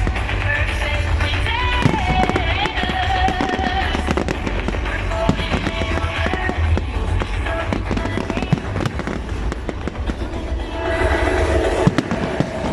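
Fireworks going off in quick succession, a dense run of bangs and crackles with a low rumble underneath, over music playing throughout.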